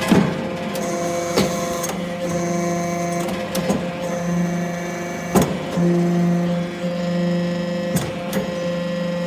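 Hydraulic metal briquetting baler running: its hydraulic pump hums steadily, the tones swelling and dropping in steps as the press works through its cycle. Five sharp clacks come about every two seconds.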